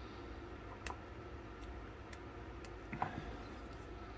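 A few faint, sharp metallic clicks, roughly a second apart, from a screwdriver working a seized screw out of an antique flintlock pistol, the screw just beginning to turn.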